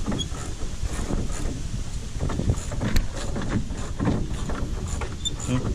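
Wind buffeting the camera microphone in a constant low rumble, with scattered small knocks and crunches and one sharp click about three seconds in.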